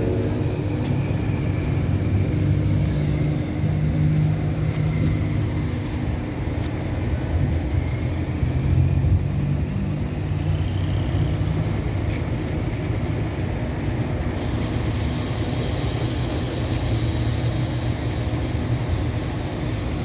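Stationary passenger train idling at a platform: a steady low engine hum.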